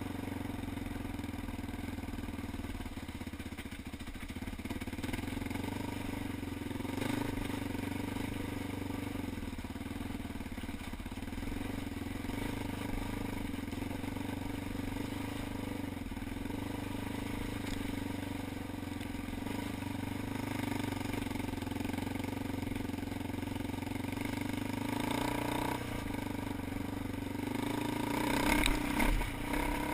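ATV engine running steadily while riding a trail, with brief rattles and knocks about seven seconds in and a louder burst of clatter near the end.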